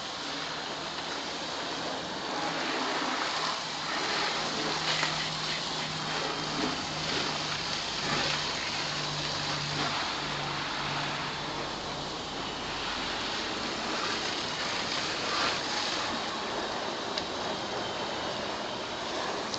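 Water jet spraying hard onto a car's bodywork and glass, a steady hiss and spatter that rises and falls a little as the spray moves across the panels.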